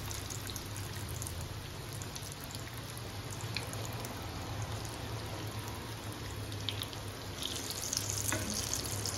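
Beetroot kebabs shallow-frying in hot oil in a nonstick pan, a steady sizzle, with a few light knocks from the wooden spoon and spatula as the kebabs are lifted out.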